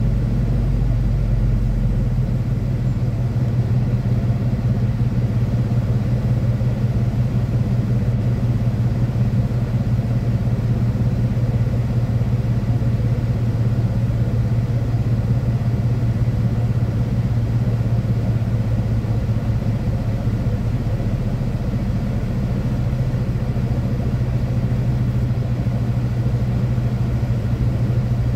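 Steady low drone of a semi truck's diesel engine, with a strong even hum; the deepest rumble drops away about two seconds in.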